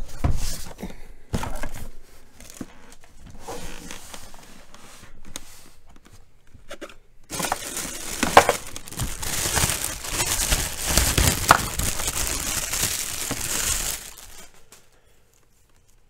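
A plastic bag crinkling and rustling for several seconds as the power cords are pulled out of it. Before that, a thump and some scattered knocks as the plastic mini fridge is set down and handled.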